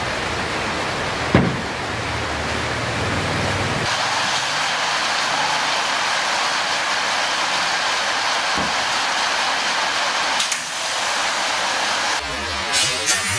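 A steady, loud hiss of noise, with a sharp knock about a second and a half in and two fainter knocks later on.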